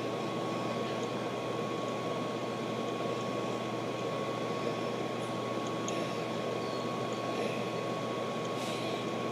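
Steady background noise: an even rushing hiss with a thin, constant high tone running through it, unchanging throughout.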